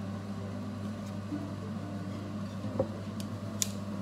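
A steady low hum from a running kitchen appliance. Near the end come a soft knock and two or three sharp light clinks from tongs and plates being handled.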